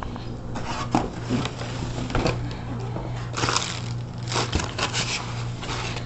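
Handling noises from a plastic robot vacuum cleaner and its brush attachment: scrapes, rustles and a few sharp clicks spread through, over a steady low hum.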